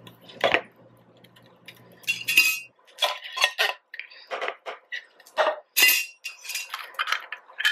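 A metal spoon scraping and clinking inside an opened tin can as beans are spooned out of it into a bowl: a run of short, irregular clinks and scrapes, more frequent in the second half.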